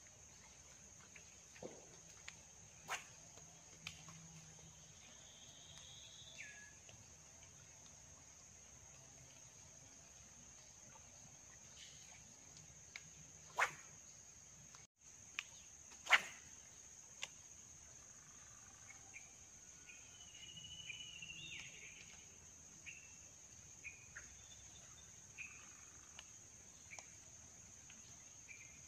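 Steady high-pitched insect drone of a swamp forest, with scattered sharp clicks, the loudest a little past the middle, and a few short bird calls. The sound cuts out for an instant about halfway through.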